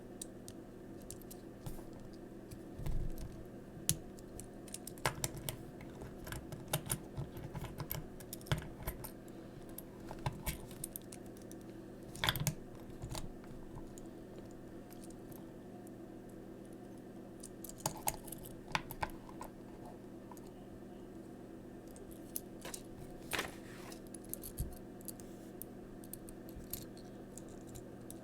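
Small plastic toy parts clicking and rattling as they are handled and fitted together, in irregular clusters with quiet gaps, over a steady low hum.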